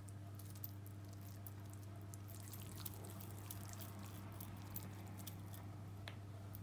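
Faint sticky, wet squishes and small clicks of very soft yogurt dough being pulled from a bowl and rolled into balls between the palms, over a low steady hum.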